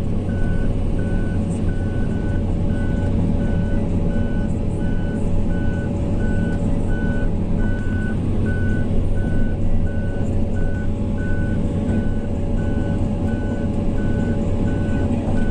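A heavy machine's diesel engine running steadily under a warning beeper that sounds about twice a second: the alarm of a machine on the move.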